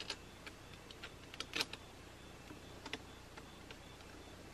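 Scattered light metallic clicks and clinks of crimped ring terminals on heavy battery cables being handled and fitted onto a battery terminal bolt, the loudest a little past a second and a half in.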